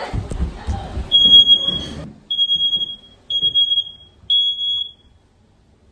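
Smoke alarm sounding: four long, high-pitched beeps about a second apart, then it stops. Knocks and handling noise in the first two seconds.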